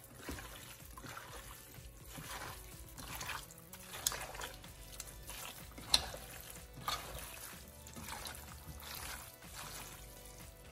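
Hand squishing and kneading chunks of raw pork in a wet spice marinade: irregular wet squelches and slaps, sharpest about four and six seconds in.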